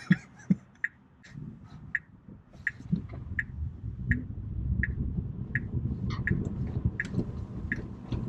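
Turn-signal indicator ticking in a Tesla Model 3's cabin, a short click about every 0.7 seconds, over low road rumble that grows louder about three seconds in.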